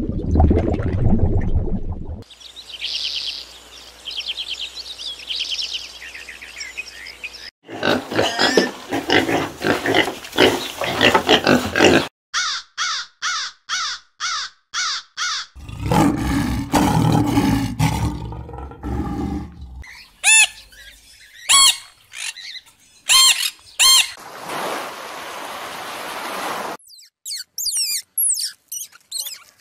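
A string of short animal-sound clips, one after another. There is a wet, watery sound at the start, repeated crow caws about two to three a second in the middle, a deeper animal call, and high thin chirps of an Indian palm squirrel near the end.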